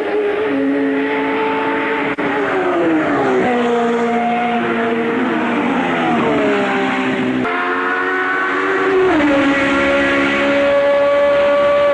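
1984 Formula 1 racing car engine running hard, its note falling in pitch about three times and changing abruptly a little past halfway, then holding a steady high note near the end.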